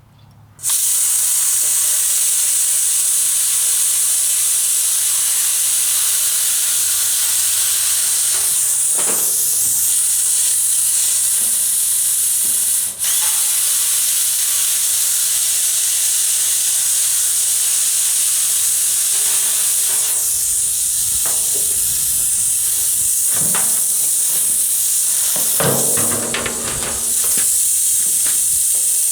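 A loud, steady hiss, strongest in the high end, that starts abruptly under a second in, with a few faint knocks and rumbles under it near the end.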